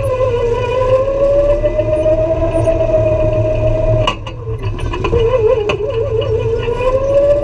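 Go-kart running with a high whine that dips and rises in pitch as it slows and speeds up again, with a short knock about four seconds in.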